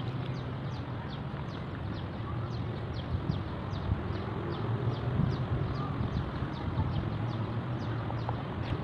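An animal chirping steadily: short, high, falling notes repeated evenly, about two and a half a second, over a steady low rumble.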